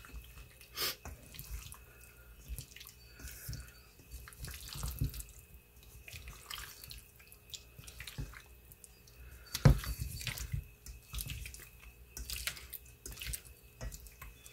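A spatula folding mayonnaise-dressed potato salad in a stainless steel bowl: wet squishing with irregular scrapes and light taps against the metal, and a louder knock a little over halfway through.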